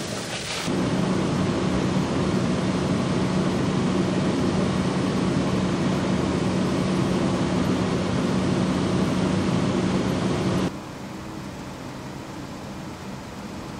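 Fire trucks' diesel engines running steadily, a constant hum with one low tone. About eleven seconds in the sound drops abruptly to a quieter hum of the same kind.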